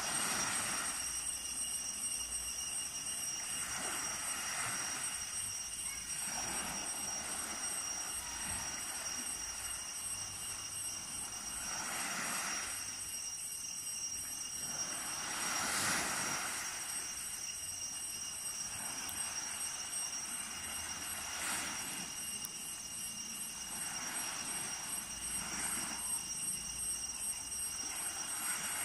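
Small waves breaking gently on a sandy beach, washing up and drawing back in irregular swells every few seconds.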